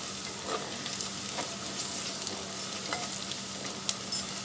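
Chopped onions sizzling in hot oil in a clay cooking pot, stirred with a wooden spatula, with the odd light click as it moves. The onions are frying to a light reddish colour.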